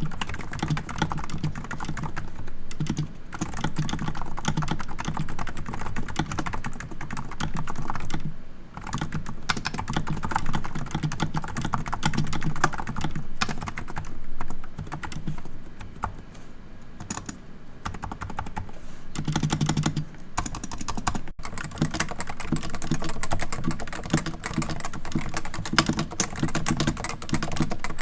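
Steady typing on a Cooler Master Novatouch TKL Topre keyboard fitted with Hypersphere silencing rings: a rapid, continuous run of keystrokes. The rubber rings cushion each slider as its spring pushes it back up, so the keys return with soft thuds instead of a plastic clack.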